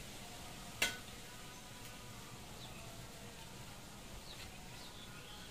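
Quiet hand-eating from steel plates with one sharp metallic clink that rings briefly about a second in. A few faint high chirps follow near the end.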